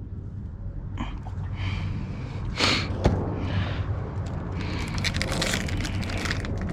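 Hands handling small parts and tools: rustling and scraping, with a sharp click about three seconds in and a cluster of small clicks near the end.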